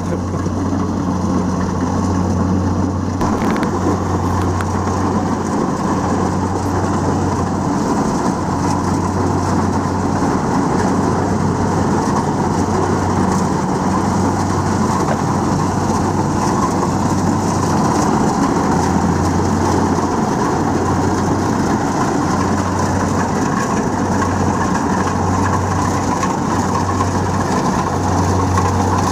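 Kubota DC-70 Plus combine harvester running steadily under load as it cuts and threshes rice: an even, unbroken diesel engine drone with the mechanical rush of the threshing machinery.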